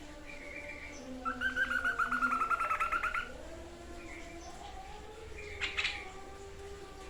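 White-breasted babbler (tepus dada putih) singing: a rapid two-second trill of quickly repeated notes starting about a second in, then a single short sharp note near the end. Fainter low, drawn-out tones sound underneath.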